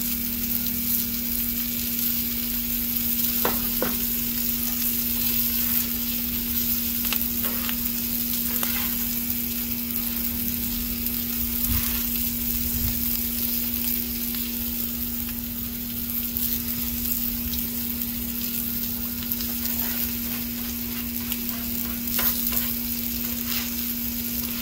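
Eggs and sausage patties sizzling steadily on a Blackstone steel flat-top griddle. A metal spatula scrapes and chops the eggs into a scramble, with a scattering of short scrapes and clicks of steel on steel.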